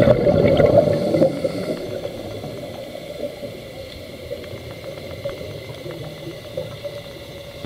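Underwater sound heard through a diver's camera: a gurgling rush of scuba exhaust bubbles, loudest for about the first two seconds, then settling into a steady low underwater rumble with faint scattered clicks.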